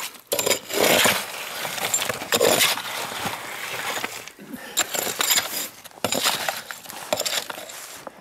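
A digging tool scraping and knocking into rocky, gravelly soil, in irregular strokes.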